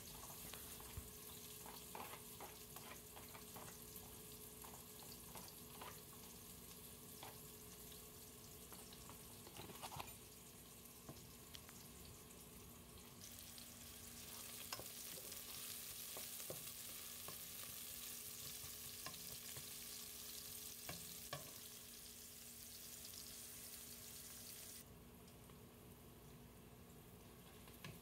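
Chopped onions frying in oil in a pot: a faint, steady sizzle with scattered light knocks of a wooden spoon stirring them. The sizzle grows brighter about halfway through and drops back shortly before the end.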